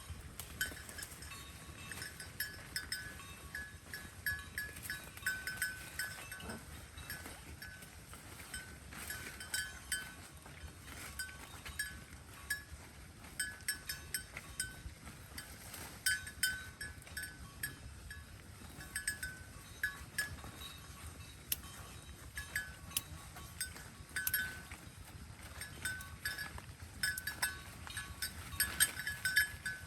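Cattle chewing hay up close, with many short crisp crunches, while a small bell rings on and off.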